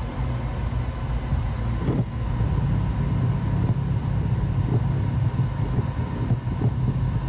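Steady low rumble of cabin noise inside a Cirrus SF50 Vision Jet, from its single turbofan engine and the airframe, with faint steady tones above it.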